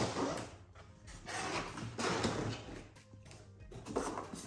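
Cardboard box being opened and handled, with short stretches of rustling and scraping broken by quiet gaps, over background music.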